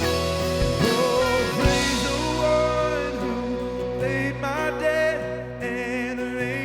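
Live worship band music, steady held chords with drum hits, and singing coming in about four seconds in.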